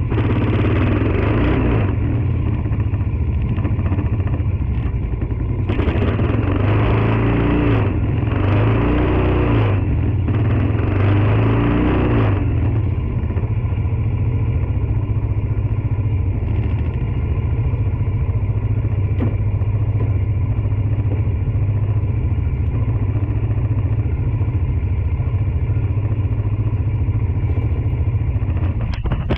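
Tao Tao 110cc ATV's single-cylinder four-stroke engine running on a new carburettor and intake, its pitch rising and falling a few times in the first half before settling into a steady idle. The engine has just been started with the choke partly up, and it sounds better with the new carb: it is breathing better.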